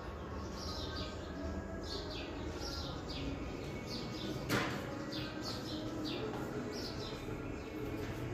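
Small birds chirping over and over, short falling chirps several a second. A single sharp knock about four and a half seconds in.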